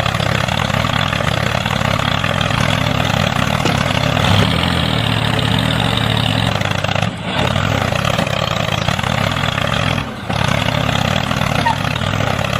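Engine running steadily, with two short drops in level about seven and ten seconds in.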